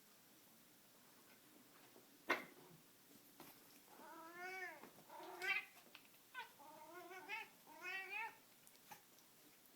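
A cat yelling in a run of drawn-out, wavering calls, about five of them, in the second half, worked up while playing with a string toy. A single sharp click comes about two seconds in.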